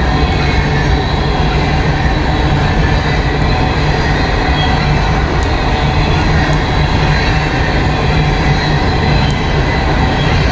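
Empty coal hopper cars of a BNSF coal train rolling past, a steady loud rumble of wheels on rail with faint high wheel squeal. A few sharp clicks come through in the second half.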